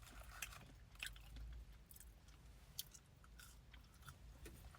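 Faint close-up chewing and biting of food, with scattered short crisp crunches and wet mouth clicks.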